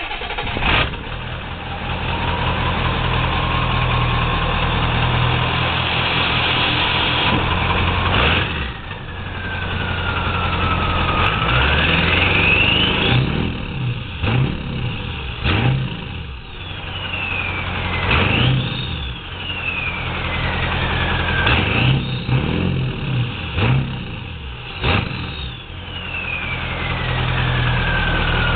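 1996 Ford F-250's 7.3L Powerstroke V8 turbodiesel, revved several times over a deep diesel rumble. The turbo whistles, a high whine that climbs as the engine spools up and slides back down each time the throttle is let off. It is fitted with an open aftermarket cold-air intake and a 5-inch turbo-back exhaust.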